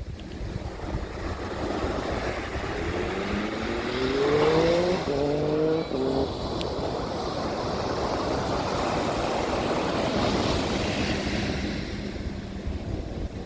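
A motor vehicle's engine accelerating, its pitch rising and stepping up again at a gear change about five seconds in, over a steady rush of surf and wind.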